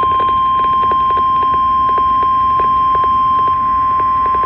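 National Weather Service 1050 Hz weather radio alert tone: one steady, unbroken beep heard over a hiss of radio static with crackling clicks. It marks the start of a warning broadcast.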